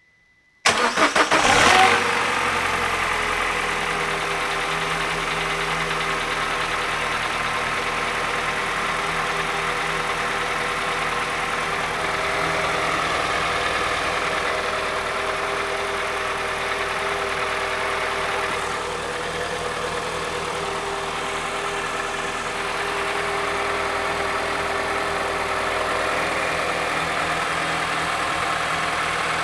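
PSA 1.4 VTi 95 hp petrol engine (8FS, timing chain) cold-started: the starter cranks for about a second, then the engine catches and settles into a steady idle. It carries the noise that comes only on a cold engine, just after the starter lets go, whose cause the owner is still looking for.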